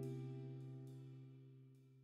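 Background music: a held chord slowly fading out.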